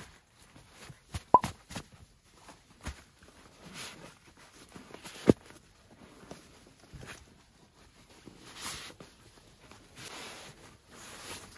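Rustling and handling of camping gear inside a tent: soft fabric rustles broken by scattered clicks and knocks. A sharp click about a second in and a knock about five seconds in are the loudest.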